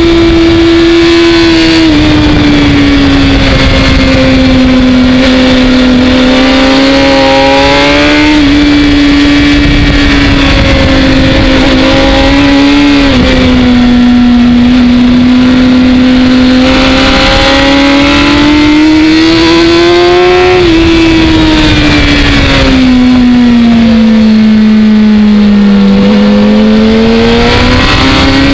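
Sport motorcycle's engine at high revs on a race track, heard from onboard: its pitch climbs under acceleration, drops sharply at upshifts about two seconds and about thirteen seconds in, and falls away slowly under braking before rising again near the end. A steady rush of wind runs under the engine note.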